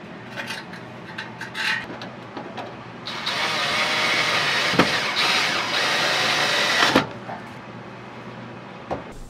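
Cordless drill driving a screw through a sheet-metal heat shield. It runs for about four seconds, starting about three seconds in, after a few light taps and clicks of handling.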